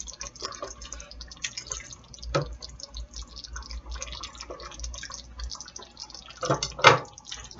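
A spoon stirs spaghetti through thick meat sauce in a large skillet, making wet squelching and slopping with scattered clicks of the utensil against the pan. There is a louder knock about two and a half seconds in and another clatter near the end.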